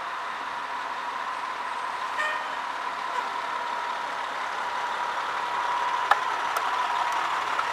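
Aerial ladder fire truck's diesel engine running as the truck pulls forward and drives past, growing gradually louder, with a steady whine over it and a couple of sharp clicks near the end.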